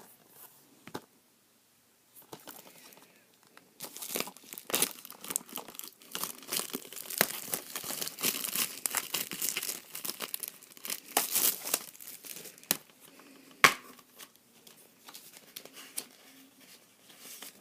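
Plastic wrapping on a Blu-ray case crinkling and tearing as it is pulled off by hand, with dense crackling for several seconds and one sharp snap near the end of the busiest stretch.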